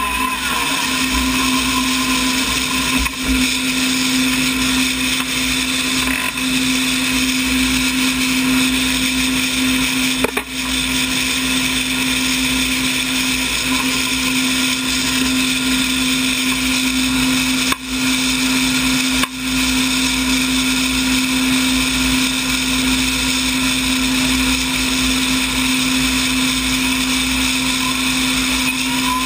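Klimov TV3-117 helicopter turboshaft engine idling with a steady high-pitched whine over a steady low hum, its pitch unchanging; the sound dips briefly a few times.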